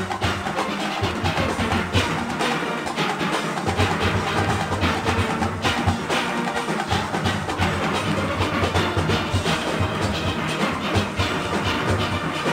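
Steel orchestra playing: massed steelpans over a driving percussion beat. The low bass drops out briefly twice, about three seconds in and again around six and a half seconds.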